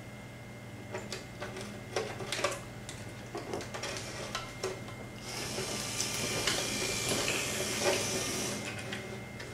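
Small DC gear motor, a new upgraded WALL-E drive motor, whirring steadily for about four seconds from about five seconds in during a bench test run straight off a battery, showing that it works. Light clicks and taps of small parts being handled come before it.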